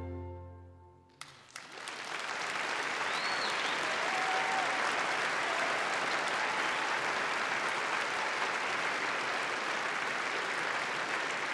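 An orchestra's final held chord dies away, and after a brief hush audience applause breaks out about a second in, quickly swelling into steady clapping.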